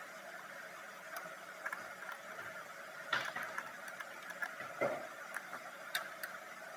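Scattered light clicks and knocks of hand tools and parts on metal during repair work, over a steady faint background hum.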